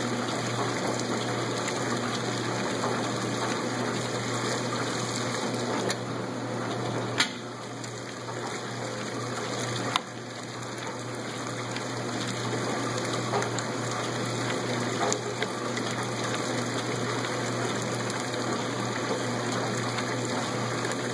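1986 Lady Kenmore top-load washer running a sudsy load, with a steady low hum under a steady rush of water from its detergent dispenser. A click comes about seven seconds in and another about ten seconds in. The water sound drops after each and then slowly builds back up: the dispenser flow briefly interrupting, a pause the owner could not trace to the control console.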